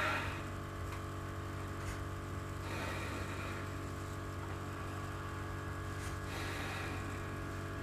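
Steady low hum, with a few faint soft rustles.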